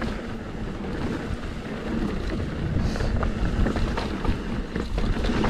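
Mountain bike rolling fast down a rocky dirt trail: a steady rush of tyre and trail noise with light scattered rattles, and wind on the microphone.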